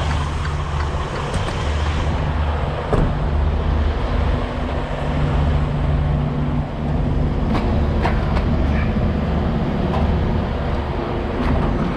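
Semi truck's diesel engine running at low revs, with the engine note shifting a few times. A few short sharp clicks come through over it.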